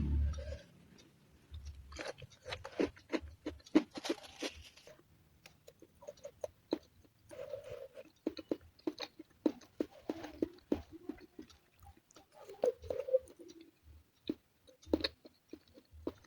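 A person chewing and crunching food, with many short, irregular crisp crunches and quiet gaps between bites.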